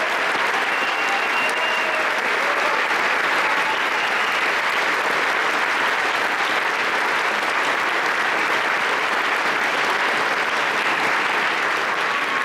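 A large audience applauding steadily, a dense, sustained clapping that neither builds nor fades.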